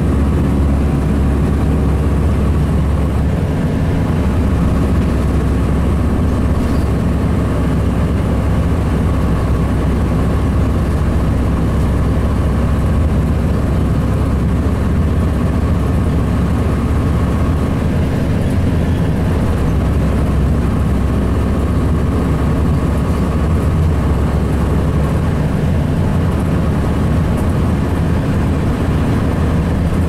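Cummins ISC diesel engine of a 2002 Blue Bird CS transit bus running steadily under way, heard from inside the bus together with road noise.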